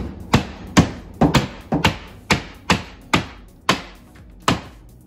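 Claw hammer striking the wooden frame of an upper kitchen cabinet that is being taken apart: about a dozen sharp blows, about two a second at first, then more spaced out.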